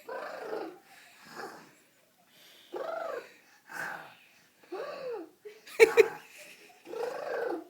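Snoring in sleep: short, wheezy, whistling snores about once a second. Two sharp clicks come about two-thirds of the way through and are the loudest sounds.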